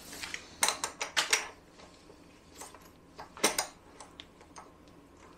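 Sharp metallic clinks and knocks: a quick cluster about a second in and a single louder knock about three and a half seconds in, as a long steel handle is fitted into a small bottle jack set under the cylinder head of a Jaguar 4.2 XK engine.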